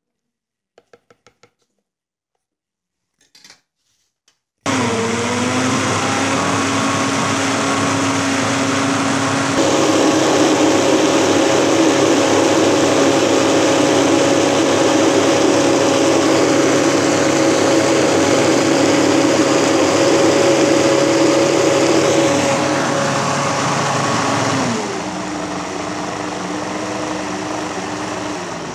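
Countertop blender blending cooked amaranth with mixed berries and water into a purée, after a few light clicks as the lid goes on. The motor starts about four and a half seconds in, runs louder from about ten seconds in, drops to a lower speed near the end and then winds down.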